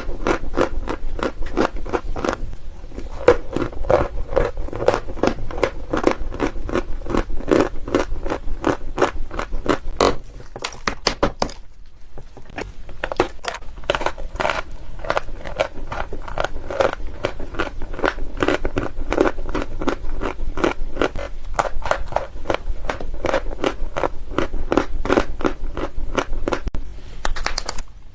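Close-up chewing of white eating chalk: crisp, crumbly crunching at about four or five bites a second, stopping for about a second near the middle.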